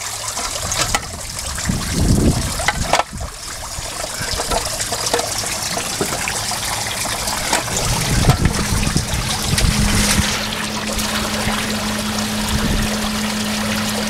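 Water pouring and splashing into a garden pond from a waterfall's top box, driven by a submersible pump that has just been switched on. The flow builds until five water-cannon spouts arc water into the pond, and a steady low hum joins about eight seconds in.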